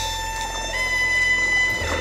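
Background music of sustained held notes over a steady bass, with a higher note coming in under a second in.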